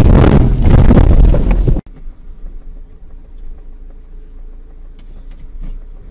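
Dashcam audio of a moving car: loud rushing wind and road noise for under two seconds, then an abrupt cut to a quieter car cabin with a steady low hum and a few faint clicks.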